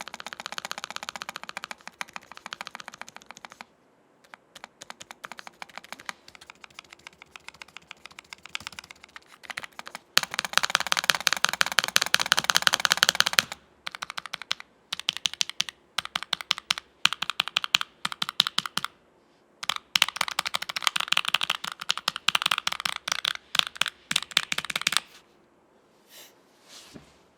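Keychron K3 Retro low-profile mechanical keyboard with Gateron low-profile KS-27 switches being typed on: quick runs of key clicks in bursts with short pauses, the fastest and loudest run about ten seconds in. The typing stops a couple of seconds before the end, leaving two faint clicks.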